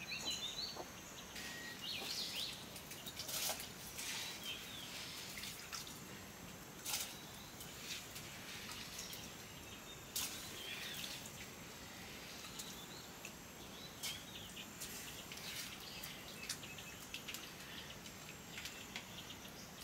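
Small birds chirping now and then, with scattered short clicks and drips of water over a steady background hiss.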